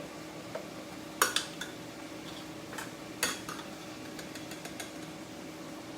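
Kitchen utensils knocking and clinking against dishes: a sharp knock about a second in and another about three seconds in, with lighter taps between and after, over a faint steady hum.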